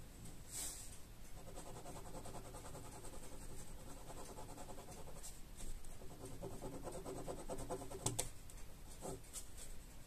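Pen tip scratching across paper as ink lines are drawn, faint, in short repeated strokes with a sharper tick about eight seconds in.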